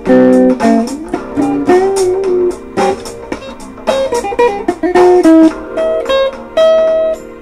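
A solo guitar, amateur noodling practice: a run of single picked notes with a few string bends and a longer held note near the end.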